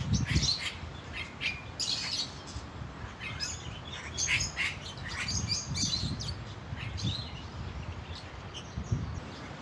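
Small birds in an aviary chirping: many short, high chirps and tweets, one after another, over a low background rumble.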